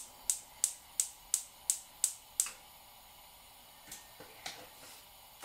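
Gas hob's electric spark igniter clicking about three times a second as a burner is lit, stopping after roughly two and a half seconds; a couple of faint ticks follow later.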